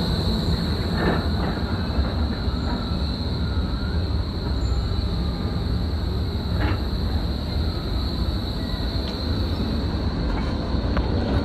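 Electric low-floor tram rolling into a stop and braking to a halt. Its wheels and running gear make a low rumble, with a steady high-pitched whine over it and a couple of light clicks.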